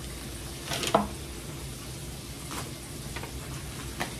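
Plastic packaging and paper rustling and crinkling as they are handled, with a few short sharper crackles, the loudest about a second in.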